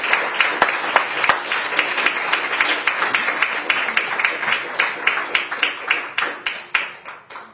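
Small audience applauding, a dense patter of handclaps that thins and fades away near the end.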